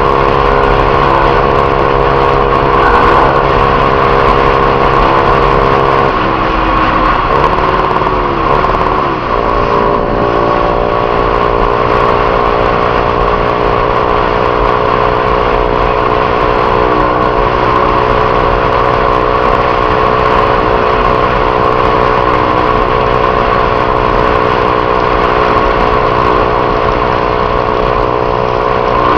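Honda CG 150 Titan's single-cylinder four-stroke engine running steadily through a Viúva Negra aftermarket exhaust. Its pitch wavers briefly about six to ten seconds in, then holds steady.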